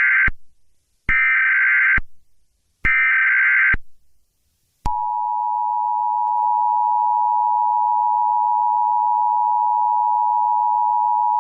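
Emergency Alert System tones: the raspy digital header bursts, three in all, each about a second long, then after a short gap the steady two-note attention tone, which starts about five seconds in and holds. Together they announce a weather alert.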